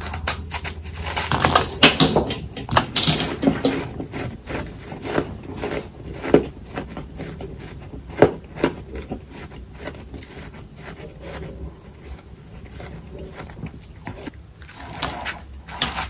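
Bites and crunchy chewing of humidifier freezer frost, a powdery ice packed into puffs. A dense run of loud crunches comes in the first few seconds, lighter chewing crunches follow, and another loud crunching bite comes near the end.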